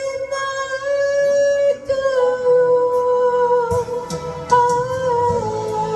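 Live singing with acoustic guitar: a voice holds long, drawn-out notes of a slow Korean ballad, the pitch stepping down a little in the second half.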